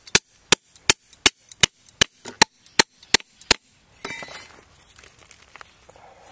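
A long iron digging bar jabbed repeatedly into soil and roots at the base of a bamboo clump, about ten sharp strikes at roughly three a second, working the bamboo stock loose to pry it out. About four seconds in the strikes stop and soil scrapes and rustles.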